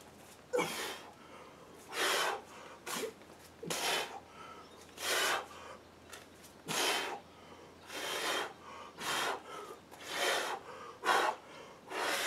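A man breathing hard and forcefully through kettlebell reps. He makes a sharp, noisy breath roughly once a second, in time with each swing of the bell.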